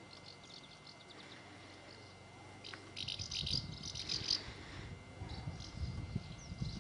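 A flock of house martins calling in flight: quick, high, twittering chirps, a few soft ones early and a loud cluster about three to four and a half seconds in, then scattered calls. A low rumble on the microphone joins about three seconds in.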